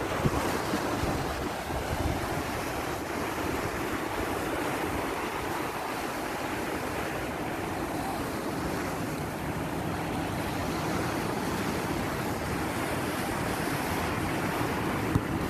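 Ocean surf washing onto a sandy beach in a steady wash, with wind buffeting the microphone in low gusts, strongest near the start.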